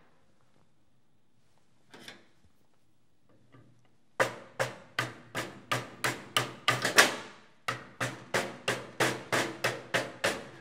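Rapid series of hammer blows, about three a second with a brief pause partway through, after a single knock about two seconds in. It is a tool being driven into a molded-case circuit breaker to knock its parts loose, and each strike rings briefly.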